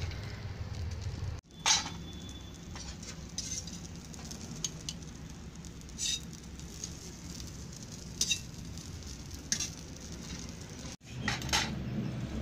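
Spoons clinking now and then against plates and steel serving pots as people eat, a few scattered sharp clinks, the loudest about two seconds in, over a low steady background hiss.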